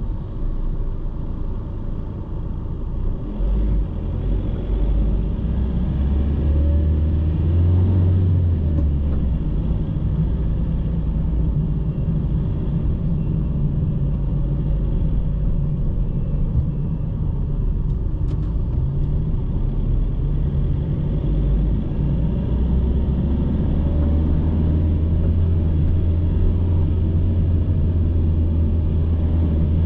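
A car driving in city traffic, heard from inside the car: a steady low rumble of engine and tyre noise, the engine note drifting gently up and down.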